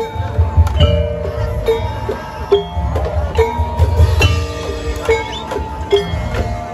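Loud music with heavy deep bass and short struck notes about once a second over held tones.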